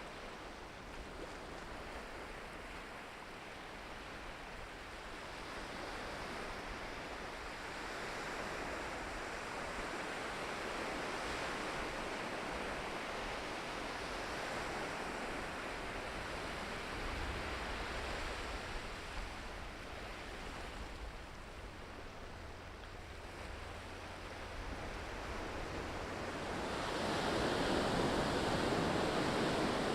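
Ocean surf washing on the shore in a steady hiss, swelling as waves break, with the loudest surge near the end.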